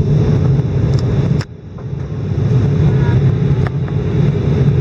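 Steady low rumble of an Airbus A319's engines and airflow heard inside the passenger cabin on approach. About one and a half seconds in it drops away suddenly and builds back up over the next second, with a few faint clicks.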